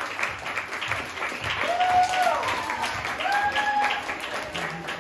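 Audience applauding, with a couple of long held cheers ("woo"), one about two seconds in and another a little past three seconds.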